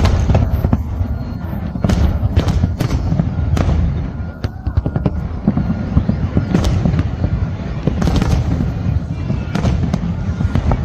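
Fireworks display: many sharp bangs of shells bursting in quick, irregular succession over a continuous low rumble of distant detonations.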